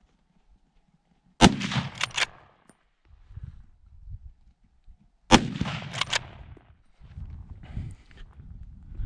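Two rifle shots from a .308 Win hunting rifle, about four seconds apart, each a loud crack followed by a couple of sharper echoes and a rolling tail.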